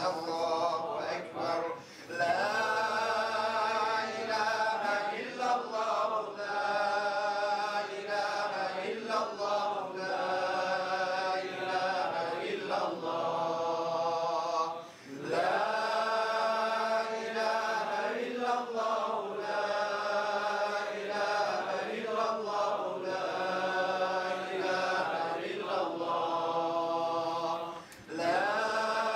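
A group of men chanting a Sufi dhikr together, repeating the same sung phrase over and over with short pauses for breath.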